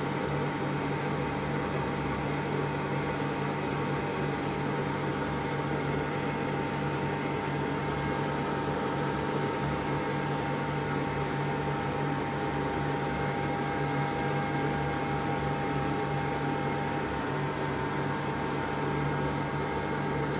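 Steady white noise for a baby's sleep: an even, unchanging whoosh with a steady hum under it.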